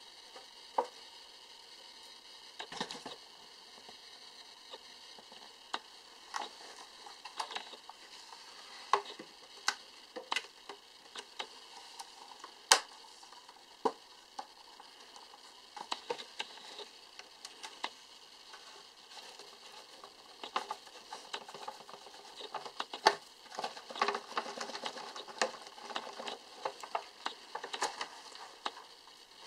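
Irregular light clicks and rustles of wood chip substrate as baby bearded dragons scuttle and scratch over it, busiest near the end.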